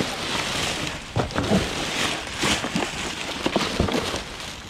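Clear plastic sheeting crinkling and rustling as a gloved hand digs through it, with scattered small knocks from debris being shifted.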